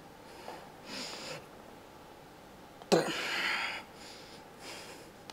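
A man's forceful breathing while curling dumbbells: short huffs about a second in and near the end, and one loud, sharp exhale about three seconds in that lasts nearly a second.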